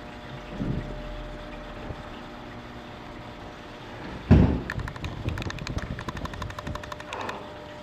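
A Maine Coon kitten scrambling on a quilted bedspread: a thump about four seconds in, then a quick run of light clicks and scuffs from its paws and claws on the fabric. A faint steady hum sits underneath.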